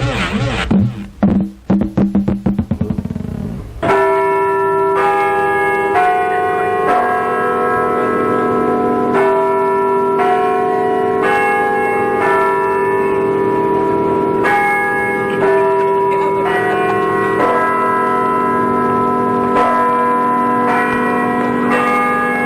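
A short comic sound effect, a warbling tone and then a run of quick pulses, cuts off about four seconds in. Church bells then ring, a different pitch struck about once a second, each note still ringing on under the next.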